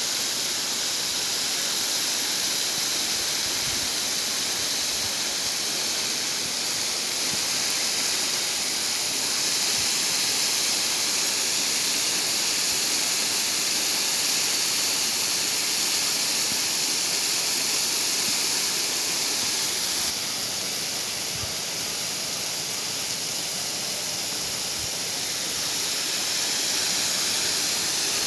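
Small waterfall: a steady rush of falling water, dipping slightly in level for a few seconds about twenty seconds in.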